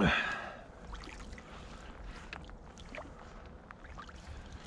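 Quiet ambience from a canoe on a river: faint water and handling noise with scattered light clicks and knocks, after a short rush of noise right at the start.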